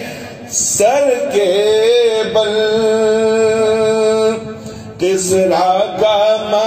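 A man singing an Urdu naat into a microphone: one long held note that bends at its start, from about a second in, then a short break and a new sung phrase from about five seconds in.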